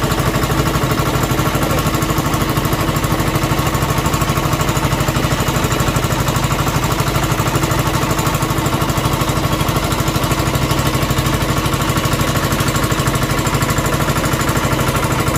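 Fishing boat's engine running steadily under way with a rapid, even chug.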